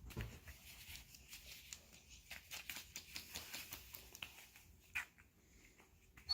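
A puppy busy at its toy: faint, irregular clicks and taps, with a slightly louder tick about five seconds in.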